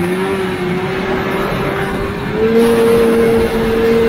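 Two-stroke snowmobile engine running under steady throttle at high revs, its pitch stepping up and holding higher about two and a half seconds in as more throttle is given.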